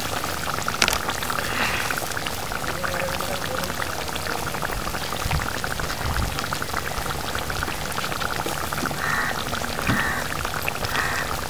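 Fish curry simmering in a metal kadai on a gas stove: a steady patter of small bubbles popping in the gravy.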